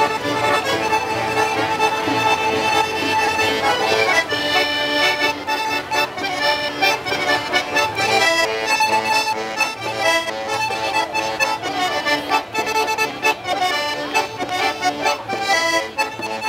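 Diatonic button accordions (organetti) playing a traditional folk tune, with quick changing melody notes over a bass that pulses on and off.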